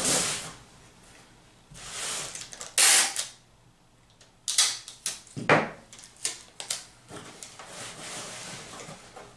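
Packing tape being pulled off its roll in several short ripping bursts, with a cluster of clicks and knocks against the cardboard box about halfway through and a longer, quieter pull near the end.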